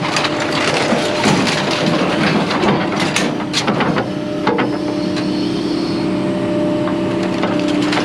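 Scrap being handled: repeated crunching, clattering knocks for about four seconds, then a steady machine hum that carries on to the end.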